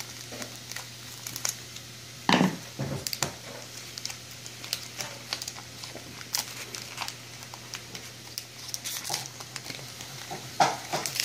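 Foil wrapper of a Pokémon booster pack crinkling and rustling as it is pulled open by hand, with many small clicks and a louder knock about two seconds in. A faint steady low hum runs underneath.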